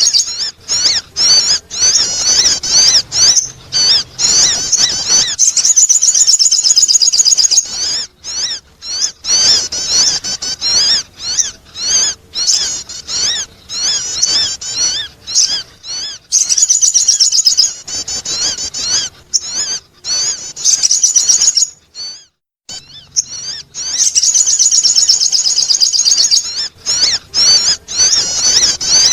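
Sogon bird calls in a bird-lure recording: loud, rapid, high-pitched chirping and warbling trills in quick runs, breaking off briefly about two thirds of the way through before going on again.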